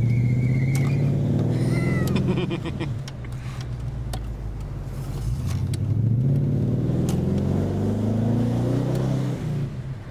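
Holden 308 V8 in a Series 2 Jaguar accelerating hard in first gear twice: each pull rises steadily in pitch, then drops away as the throttle is lifted, about three seconds in and again near the end.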